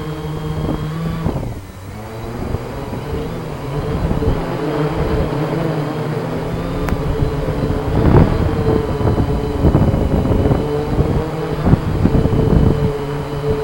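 Blade Chroma quadcopter's brushless motors and propellers droning with a steady pitched hum. The hum dips briefly about a second and a half in. In the second half it turns rougher and more uneven as the quad descends.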